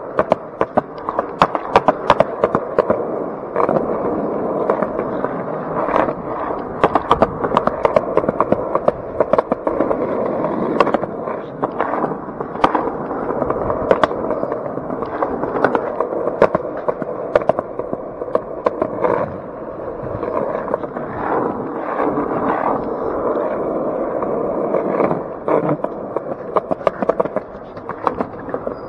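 Skateboard wheels rolling fast over a concrete sidewalk: a steady rumble with frequent sharp clacks as the wheels cross the joints between the slabs.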